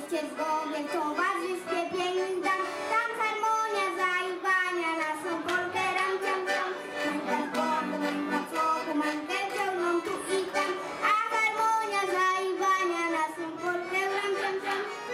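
A child singing a folk song into a microphone to accordion accompaniment.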